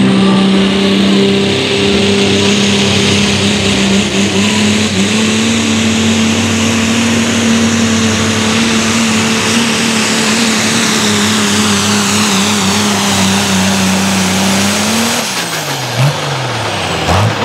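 Pro stock diesel Ford Super Duty pickup's engine held at full throttle under the load of a pulling sled, a steady drone that creeps slowly up in pitch. About fifteen seconds in it rises briefly, then drops off sharply as the throttle is released, followed by a couple of quick revs near the end.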